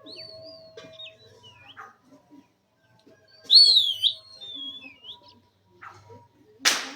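Pet Indian ringneck parakeet whistling a string of gliding, swooping notes, the loudest about three and a half seconds in, then a short harsh squawk-like burst near the end.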